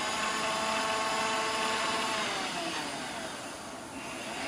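Servo power feed motor of a 1997 Chevalier FM-4VKH vertical mill whining steadily as it drives the table lengthwise. The whine drops in pitch and fades a little past two seconds in as the speed dial is turned, then picks up again near the end.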